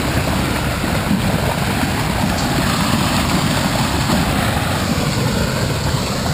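Floodwater rushing and churning through a concrete canal outfall: a loud, steady whitewater rush.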